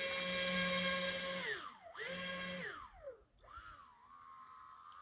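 Electric motor of a radio-controlled boat whining under throttle. The pitch rises and holds for about a second and a half, drops away, surges again briefly, then falls to a quieter whine that rises and falls as the throttle is worked.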